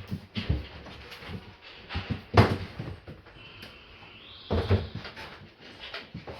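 Knocks and clatter of aluminium joinery parts being handled and fitted together, with the loudest thump about two and a half seconds in and another near four and a half seconds. A brief high squeak of metal sliding runs just before that second knock.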